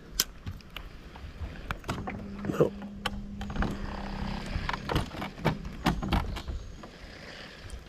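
Scattered clicks and knocks of fishing tackle being handled aboard a small boat, with a steady low hum for about two and a half seconds starting about two seconds in.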